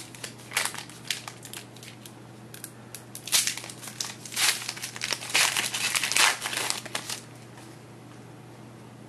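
Trading-card pack wrapper crinkling as it is handled and opened: quick crackly rustles, the busiest stretch from about three to seven seconds in.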